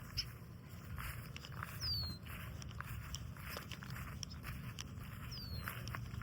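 Footsteps and light crackling on the bank over a steady low wind rumble on the microphone. A short high falling whistle sounds twice, about two seconds in and near the end.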